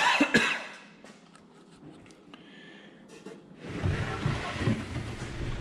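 A short cough at the start, then, about two thirds of the way in, a wooden drawer scraping as it slides out over the plywood floor of a truck-bed drawer platform, lasting about two seconds.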